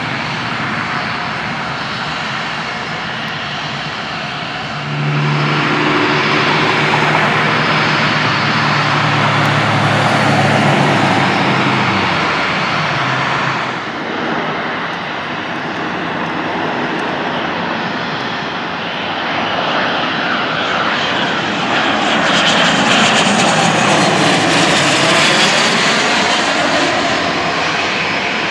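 A single-engine Cessna propeller plane climbing out at full power, its engine drone with a low hum swelling about five seconds in. After a break, a business jet on approach, its engine rush building about two-thirds through and loudest near the end.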